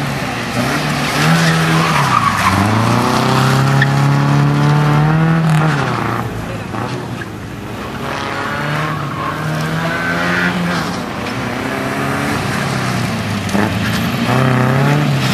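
Datsun 140Y (B310) four-cylinder engine revving hard as the car accelerates and brakes around a tight cone course. Its pitch climbs for a few seconds, drops sharply around five seconds in, then rises again, with tyres squealing through the turns.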